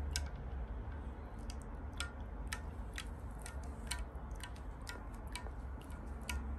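Small, irregular water plinks and clicks in a shallow basin of water, about two a second, over a low steady rumble.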